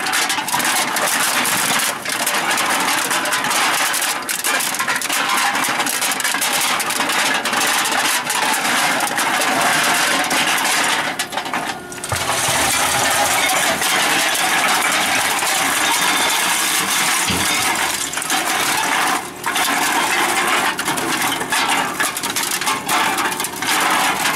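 Toronita Model 10P can densifier compacting 12-ounce aluminum beverage cans: a dense, continuous metallic clatter and crunch of cans being shoved and crushed by the hydraulic ram, with the hydraulic power unit's motor humming underneath. The clatter dips briefly about halfway through and again about three-quarters through.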